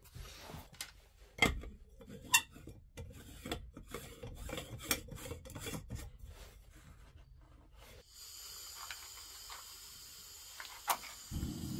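Stainless steel moka pot being handled and screwed together: a run of small metal clicks and scrapes. About eight seconds in, a steady hiss starts from the gas canister stove. Near the end a match is struck on its box and the burner lights.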